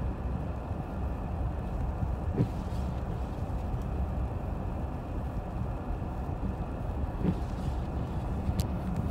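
Steady low rumble of a car driving on a snow-covered road, heard from inside the cabin: engine and tyre noise without change. A faint click or two sounds partway through.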